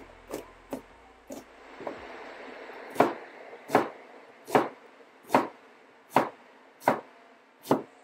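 Cleaver chopping on a plastic cutting board. First come light, quick taps mincing garlic. From about three seconds in come seven louder, evenly spaced chops through a red onion, a little more than one a second.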